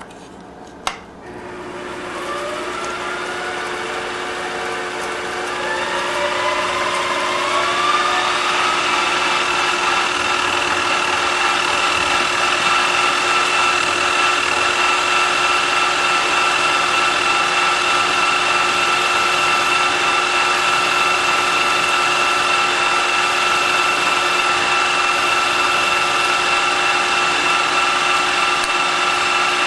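A click, then the Grizzly G4015Z mill/lathe's spindle drive winding up to speed with several rising whines over a few seconds, then running steadily while a small drill bit drills into a metal adapter plate.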